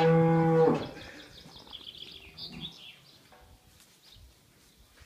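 Cow mooing: one long, low moo that stops about a second in, followed by faint high chirping.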